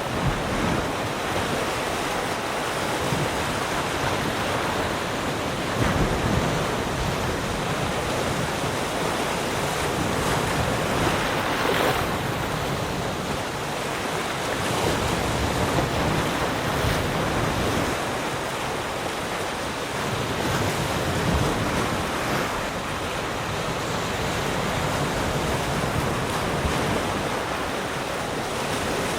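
Calm ocean waves lapping and washing around rocks, a continuous surf wash that swells now and then, with some wind.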